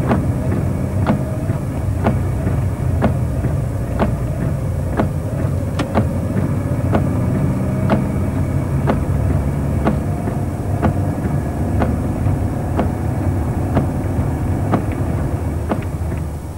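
Steady low mechanical rumble with a sharp click about once a second, like a machine or pump running evenly; it cuts off suddenly at the end.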